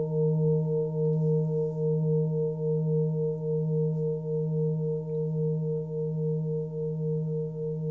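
A 21.7 cm Tibetan singing bowl tuned to about 158 Hz (D#) ringing with a deep steady hum. Its higher overtones sound above it, one of them wavering in a fast, even beat, and the ring fades slowly.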